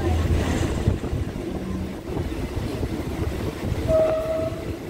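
Train running along the track: a steady rumble with wind noise, and a short high tone about four seconds in.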